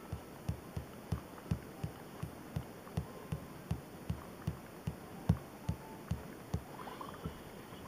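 Littlest Pet Shop phone game's sound from the phone's speaker: a steady beat of short low thumps, about three a second, stopping a little over a second before the end.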